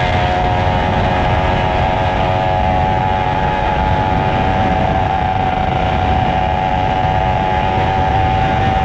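Superbike engine running at a steady cruise, its pitch holding nearly constant, with wind rushing over the microphone.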